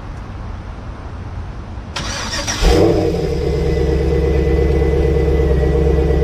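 Starter cranks briefly about two seconds in, then the 2001 Pontiac Firebird Formula's LS1 V8 fires with a loud burst and settles into a steady idle.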